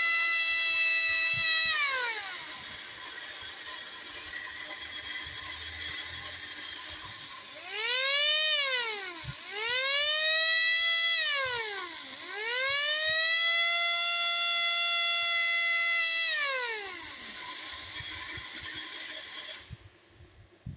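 Battery-operated 1960s Nomura tin toy fire engine's siren wailing, rising and falling several times over the whirr of its small motor and gears. It cuts off suddenly near the end.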